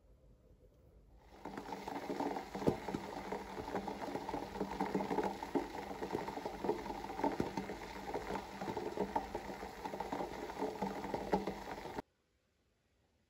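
Seawater boiling hard in a pot, a dense bubbling and popping as it is boiled down to make salt. It starts about a second in and stops abruptly near the end.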